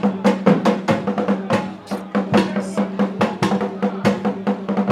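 Music driven by drums: fast, busy drum strokes in an uneven rhythm over a steady low held tone.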